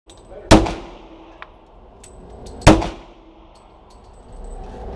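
Two pistol shots about two seconds apart, each a sharp crack with a short echo off the walls of an indoor shooting range.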